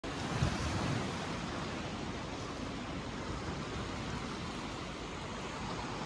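Sea surf washing onto a sandy beach: a steady rushing noise, with a brief low rumble about half a second in.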